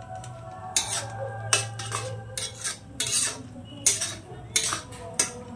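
Metal spatula stirring and scraping a thick vegetable curry around a metal kadai, clinking against the pan about twice a second with a brief metallic ring.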